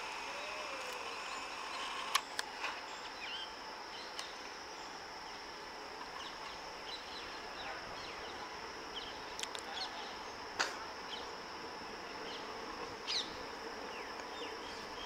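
Insects droning steadily in a high, even band, with a few sharp clicks and brief chirps scattered through.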